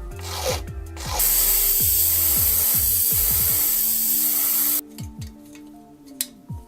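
A loud steady hiss that starts about a second in and cuts off sharply after about three and a half seconds, then a small motor's hum that winds down to a stop near the end.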